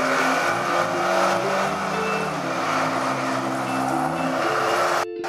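Engine of a mud-plugging first-generation Suzuki Vitara revving up and down as its tyres churn through deep mud, over background music, with a brief dropout near the end.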